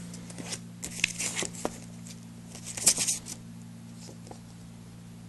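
Rustling and crinkling as a DVD case and its paper insert are handled, a few short bursts in the first three seconds, over a steady low hum.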